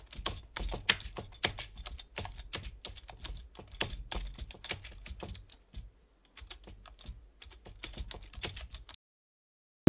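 Computer keyboard typing sound effect: a rapid, irregular run of keystroke clicks, with a short pause about six seconds in.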